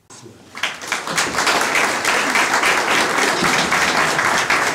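Audience applauding: many people clapping, coming in about half a second in and then going on steadily.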